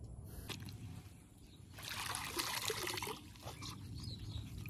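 Floodwater sloshing and trickling around feet moved in the water, a soft splashing stretch about two seconds in that lasts roughly a second.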